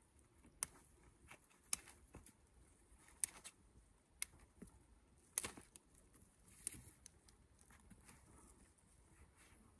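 Faint, scattered snaps and rustles of mustard-plant stems and flower heads being handled and packed down by hand.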